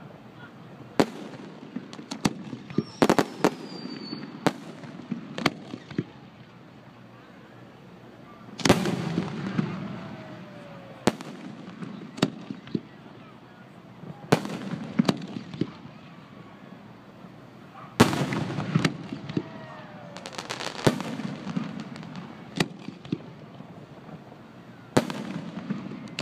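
Aerial fireworks display: shells bursting in sharp bangs at irregular intervals, a dozen or more, several followed by crackling and a low rumbling echo.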